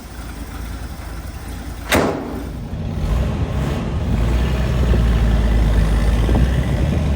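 1964 Ford F100 pickup engine idling steadily, with one sharp click about two seconds in. A heavy low rumble grows louder from about three seconds in.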